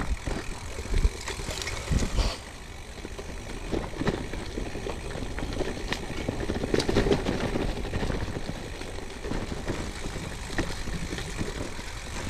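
Gravel bike riding over a forest track: steady tyre and ride noise with low wind rumble, and a few knocks from bumps in the first couple of seconds.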